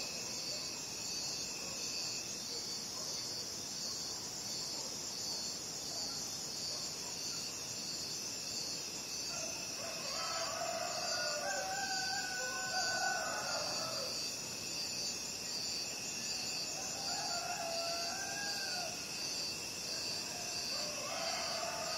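Crickets chirping steadily in a high, evenly pulsing chorus. Roosters crow over them: one long crow about ten seconds in, a shorter one a few seconds later, and another starting near the end.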